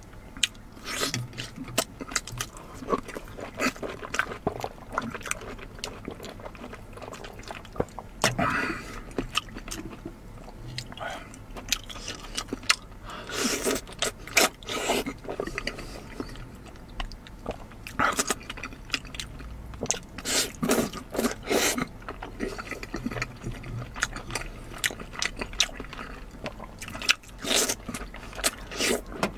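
Close-miked eating: irregular wet chewing, biting and smacking, with occasional scrapes of utensils against a dish.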